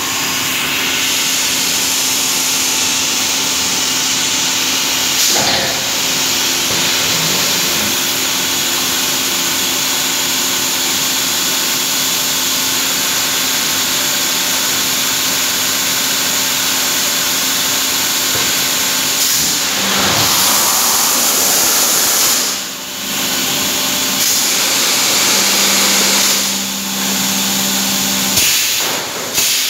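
Steady, loud hiss and hum of running machinery in a thermocol (expanded polystyrene) plant, with a few faint steady hum tones under the hiss. The noise dips briefly three times in the last third.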